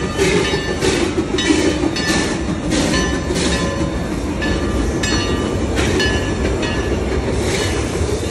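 Steam train passing close by: a steady rumble with regular clacking of wheels over rail joints, about two a second, that spaces out after the middle.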